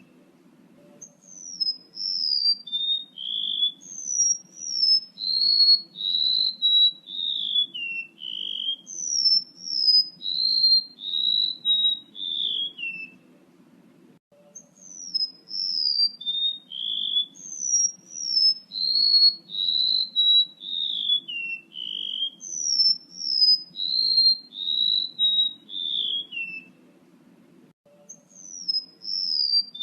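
Lure recording of a male rementuk laut's call: a long run of clear whistled notes, each sliding down in pitch and stepping lower through the phrase. The phrase breaks off for about a second and a half midway and then repeats, over a faint low hum.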